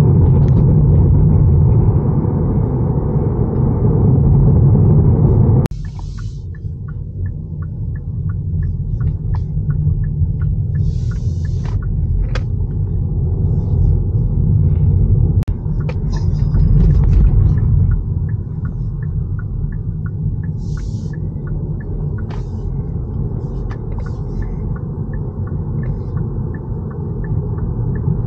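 Cabin road and wind noise in a 2023 Kia Niro hybrid crossover at highway speed: a steady low rumble from the tyres and airflow, the excessive road and wind noise the driver points out. About six seconds in it drops abruptly to a lighter rumble.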